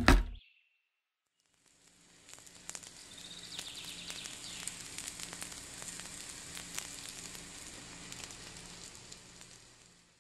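Miniature plastic oven door clicking shut, then cupcakes baking in the oven: a crackling sizzle over a faint hum that swells in about two seconds later and fades away near the end.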